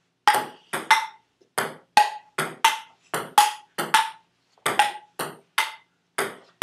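Table tennis rally: a ping-pong ball bouncing on the table and struck back and forth by paddles, a quick even run of sharp, slightly ringing clicks about two to three a second.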